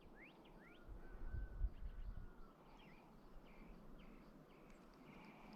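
Faint wild birdsong: a few quick rising chirps, a thin held whistle, then a run of short repeated calls. Low dull rumbles come about a second in.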